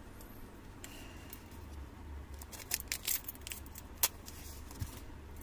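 Sharp clicks and light scrapes from a cardboard sleeve and a utility knife (cutter) being handled: a short cluster of clicks a little before halfway, then one louder click about four seconds in. A low steady hum runs underneath.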